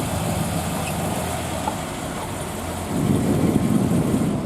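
A car engine idling steadily, a low hum that grows louder about three seconds in.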